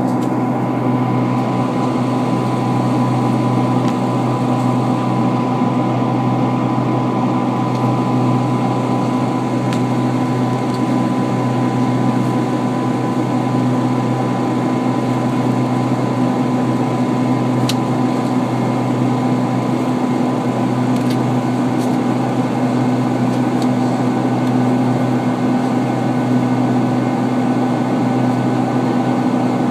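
Steady cabin drone of a Boeing 747-436 in flight, its Rolls-Royce RB211-524H turbofans and the rushing air heard from inside the cabin beside the wing. A low hum and a thin, steady whine run unchanged under the noise, with a couple of faint ticks.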